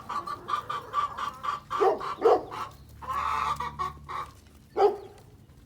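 Chickens clucking: a quick run of short, evenly spaced clucks, then a few louder single calls and one longer drawn-out call.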